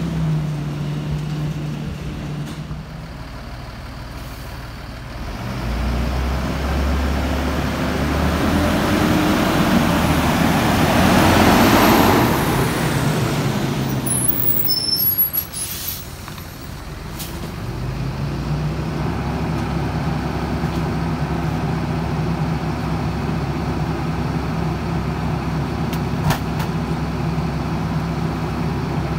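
Diesel engine of a Freightliner M2 rear-load garbage truck pulling away and driving close past, loudest about twelve seconds in. A few sharp air-brake hisses follow as it stops, and then the engine idles steadily.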